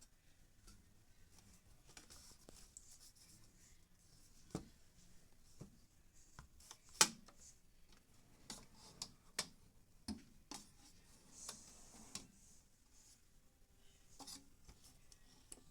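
Small plastic fidget toys being handled: scattered clicks, taps and light rubbing, with one sharper click about seven seconds in.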